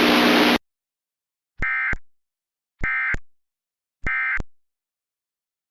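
Emergency Alert System digital data bursts: three identical short, harsh electronic warbles about a second apart, the SAME End of Message code that closes an EAS alert. Before them, a static-like hiss cuts off suddenly about half a second in.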